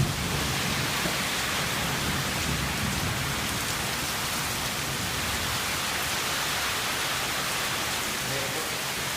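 Rainstorm with strong wind: a steady rushing of heavy rain, with low rumbling in the first few seconds.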